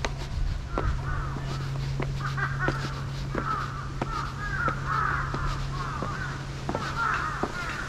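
Crows cawing repeatedly in the trees, with footsteps descending stone steps about every two-thirds of a second and a steady low hum underneath.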